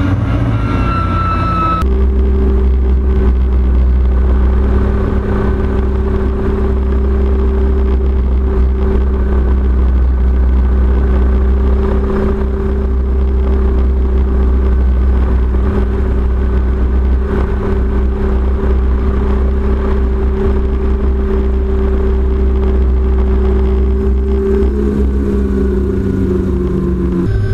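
MD500C helicopter's turbine engine and rotor running with a steady drone. In the first couple of seconds a high whine falls slightly in pitch, then the sound changes abruptly to a deeper, steadier drone with an even hum.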